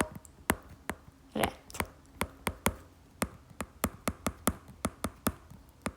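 A series of sharp light taps and clicks, irregularly spaced at about three a second, like a pen or stylus tapping while writing or keys being pressed.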